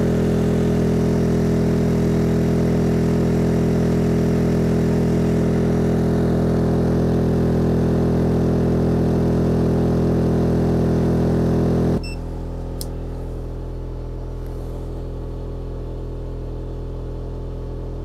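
EcoFlow Smart Generator (Dual Fuel) engine running steadily on bottled gas under load. About twelve seconds in, the sound drops abruptly to a quieter, duller hum.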